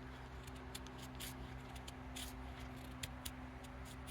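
Knife blade shaving curls off a stick of wood to make a feather stick: a series of short, irregular scraping strokes.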